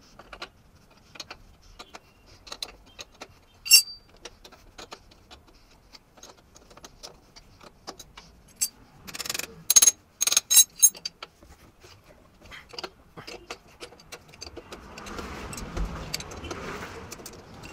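Steel spanner and tools clinking and knocking against a motorcycle's rear axle nut and chain adjuster bolts as a jammed nut is worked loose. There is a quick run of sharp metallic clinks about nine to eleven seconds in, and a rougher scraping, rattling stretch near the end.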